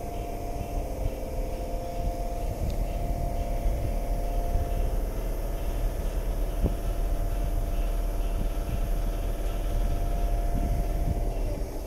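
Electric multiple unit standing at the platform, its onboard equipment humming steadily with a low rumble underneath; the hum fades away near the end.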